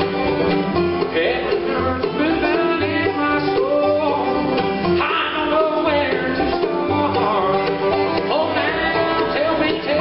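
Bluegrass band playing live: banjo, fiddle, mandolin, resonator guitar, acoustic guitar and upright bass together, the bass pulsing on a steady beat under sliding melody lines.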